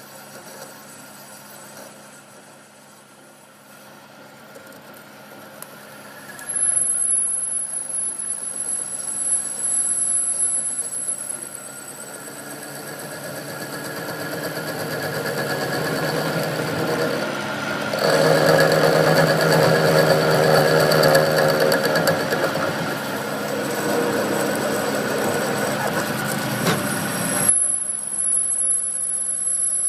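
Workshop machinery running steadily, in several cut-together stretches. Some stretches carry a high, steady whine, and the loudest, fullest running comes after the middle.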